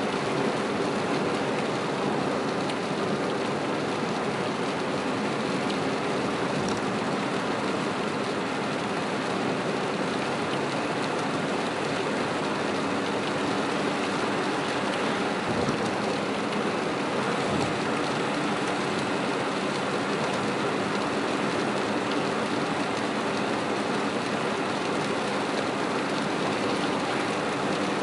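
Heavy rain falling on a car's roof and windshield, heard from inside the cabin, over the steady noise of tyres running on a soaked expressway.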